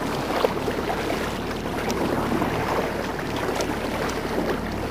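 Water splashing and lapping against a moving kayak's hull, with wind on the microphone and a faint steady low hum underneath.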